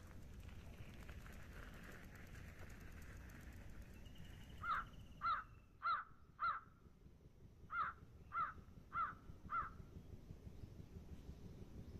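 A crow cawing: two runs of four harsh caws, each caw a little over half a second after the last, the first run starting about five seconds in and the second about eight seconds in, over faint outdoor background hiss.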